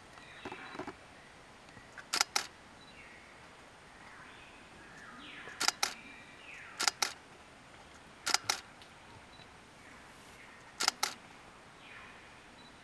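Camera shutter firing in quick double clicks, five times at uneven intervals of one to three seconds. Between them come faint falling whistled bird calls over a quiet forest background.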